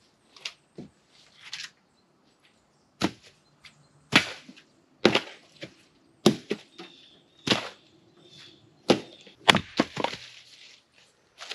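Firewood being handled: a dozen or so sharp wooden knocks and cracks at irregular spacing, roughly one a second.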